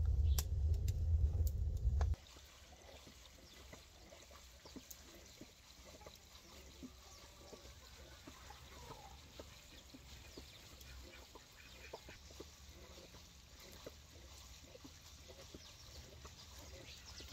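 A wood fire burns with a low rumble and sharp crackles, then cuts off suddenly about two seconds in. What follows is a faint, steady patter of rain drips with a few soft bird chirps.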